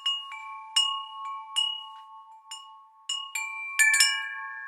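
Chimes ringing: irregular strikes that leave a few steady, overlapping tones sounding, the strikes coming closer together near the end.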